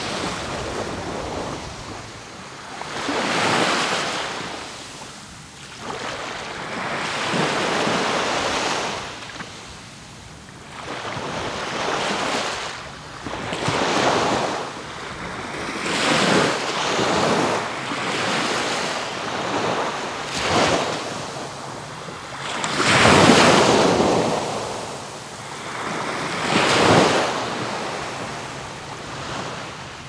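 Sea waves breaking and washing onto the beach, one surge after another every two to four seconds, the largest about three-quarters of the way through.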